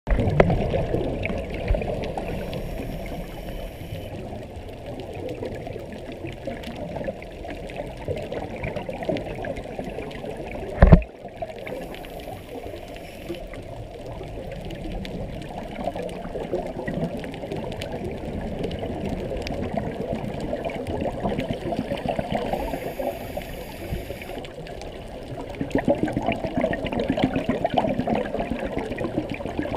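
Scuba regulator exhaust bubbles gurgling, muffled through a GoPro's underwater housing, swelling and fading in irregular surges. One sharp knock comes about eleven seconds in.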